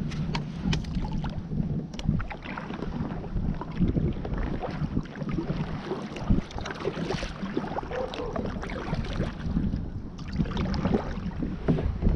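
Water sloshing and splashing around a small boat, with irregular knocks and clatters throughout.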